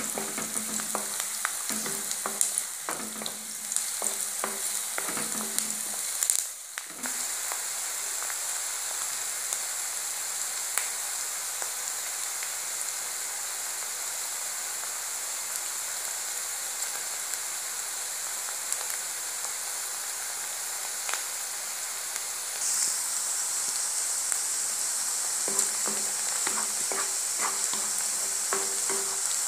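Chopped onion and garlic frying in hot oil in a kadai, a steady sizzle that grows a little louder about three-quarters of the way through. A wooden spatula stirs and scrapes them for the first few seconds and again near the end.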